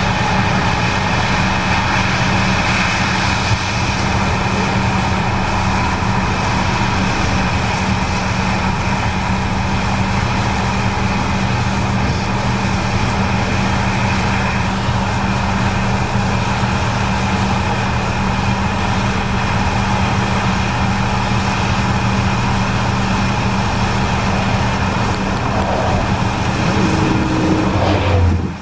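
Case IH 8250 Axial-Flow combine running steadily while harvesting corn: a constant loud machine drone with a steady engine hum.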